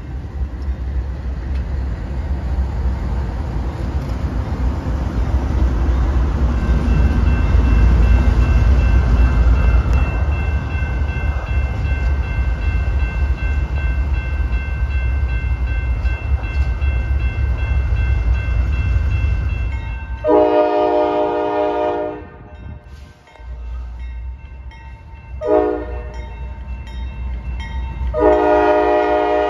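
GE AC44CW diesel freight locomotives rumbling past at close range. About two-thirds of the way in, a locomotive air horn sounds three blasts, a long one, a short one and another long one near the end, with a grade-crossing bell ringing steadily behind them.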